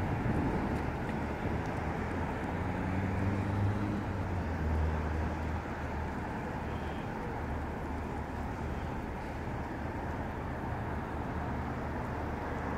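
Street traffic, with a car's engine note standing out as it pulls away in the first few seconds, then fading into a steady hum of passing traffic.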